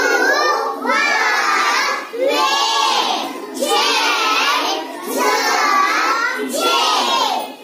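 A class of young children chanting phonics syllables together in unison, in loud short phrases about a second long with brief breaks between them.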